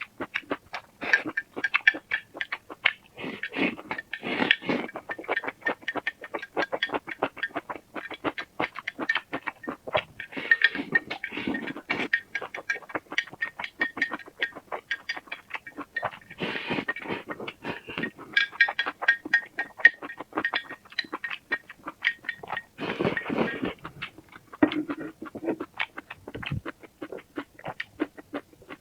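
Close-miked eating: rapid, wet chewing and mouth-smacking clicks.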